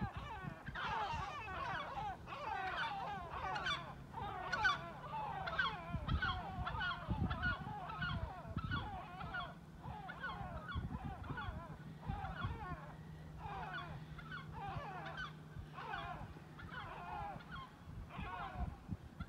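A flock of great black-backed gulls calling continuously, many deep, falling calls overlapping one another.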